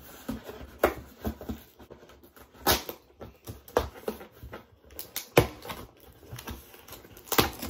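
A cardboard shipping box being opened by hand: fingers pick at the tape on the top flap and scrape across the cardboard, with several irregular sharp knocks and taps. The loudest come about a second in, near 3 and 5.5 seconds, and near the end.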